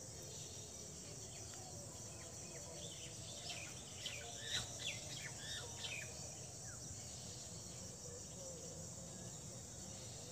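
Steady high insect trill, with a cluster of short bird chirps in the middle.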